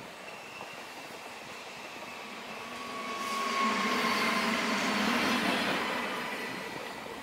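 Matterhorn-Gotthard-Bahn electric train passing. Its sound swells about three seconds in and fades again as the last car goes by, with a thin steady whine riding over the rolling noise.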